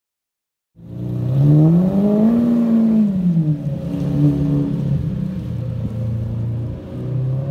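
Lamborghini Murciélago LP640's V12 engine as the car pulls away. It starts suddenly just under a second in, its note climbs for about a second and a half and drops back, holds steady, then begins climbing again near the end.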